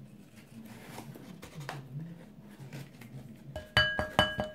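A plastic measuring cup knocked rapidly against the rim of a glass mixing bowl, about five quick clinks a second, the glass ringing at the same pitch with each strike. The clinks begin about three and a half seconds in, after faint low background sound.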